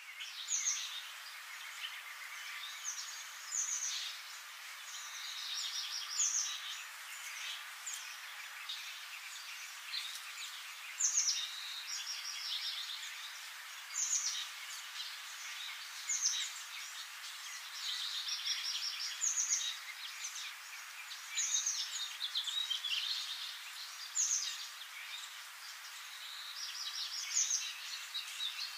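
Songbird singing: short phrases, each a high falling note running into a fast trill, repeated every two or three seconds over a steady hiss.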